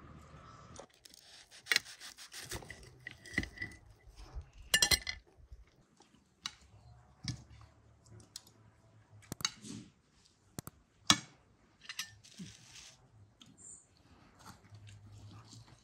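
Knife and fork clinking and scraping on ceramic plates as food is cut, in scattered strokes with sharper clinks about two, five and eleven seconds in.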